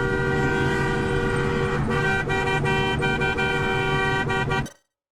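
Several vehicle horns held down together in long, overlapping blasts over car engine and road noise, the mix of tones shifting about two seconds in. The sound cuts off suddenly near the end.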